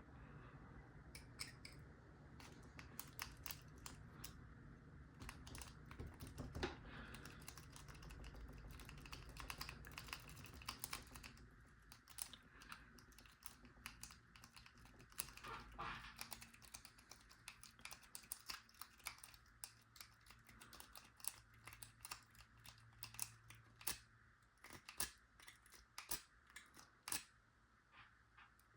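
Faint, irregular small metallic clicks and light scraping of a lock pick (the McNally "McTickler") and a tension wrench working the pins of a lock. The clicks come thicker in the first half and then thin out to scattered ticks.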